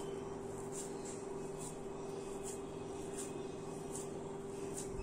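Faint steady hum, with soft, regular squishes of semolina dough being squeezed and pressed in a greased hand.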